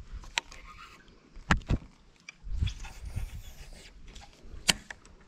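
Knocks and bumps of gear being handled aboard a fishing boat: a sharp knock just after the start, two close together about a second and a half in, a scuffing rumble around the middle, and another sharp knock near the end.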